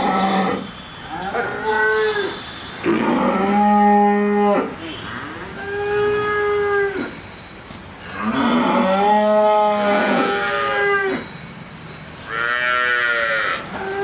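Holstein Friesian crossbred cows mooing: about five long, loud moos, one after another with short pauses between them.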